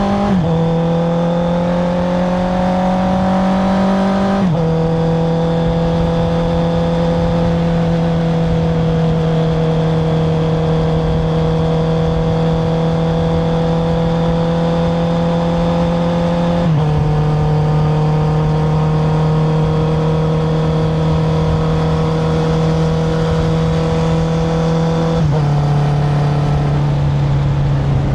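Honda CBR650R's inline-four engine running through an Akrapovic titanium exhaust while riding. The note climbs slowly and drops a step at each upshift, about four times.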